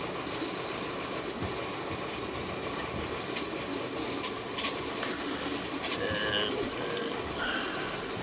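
Small metallic clicks and ticks of a hex key and steel bolts being worked in a plastic 3D-printed part, a few at a time, over a steady background hiss. A couple of short faint tones sound near the end.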